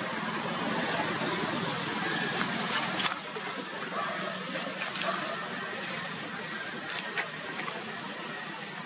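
Steady high-pitched drone of an outdoor insect chorus, typical of cicadas, with a few faint clicks.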